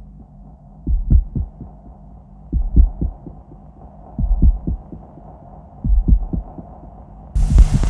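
Experimental electronic noise music: groups of deep low pulses, like a heartbeat, recurring about every one and a half to two seconds over a steady drone. A burst of hiss comes in near the end.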